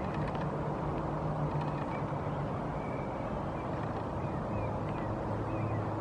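Steady low engine drone whose hum drops a little in pitch partway through, with a few faint short bird chirps above it.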